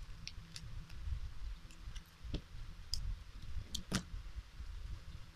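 Scattered small clicks and crackles of a plastic sachet of face primer being handled and opened in the fingers, the sharpest click about four seconds in.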